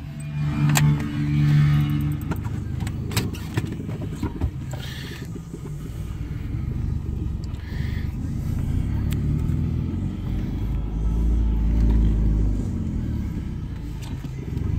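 Car running, heard from inside the cabin, with music playing in the background.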